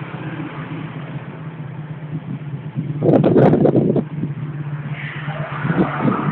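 Small motorcycle engine idling steadily, louder for about a second about three seconds in.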